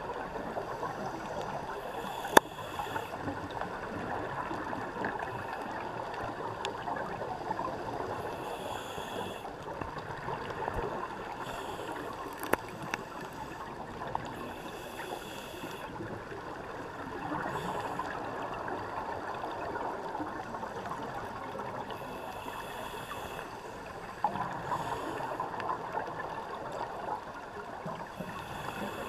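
Underwater ambience heard through a camera housing: a steady rush of water noise, with a scuba regulator's exhaled bubbles hissing out in short bursts about every six or seven seconds. A few sharp cracks stand out, the loudest about two seconds in.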